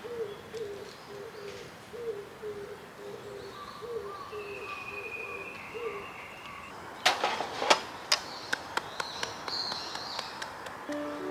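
A bird calling a low hooting note over and over, about two a second, for around six seconds, with a higher steady whistled note from another bird over it near the middle. Then a few loud sharp clinks or knocks, followed by lighter ticking.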